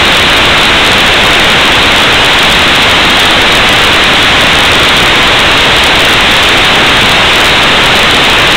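Loud, steady static hiss from an analog FPV video receiver with no signal, the audio side of the snow on the screen.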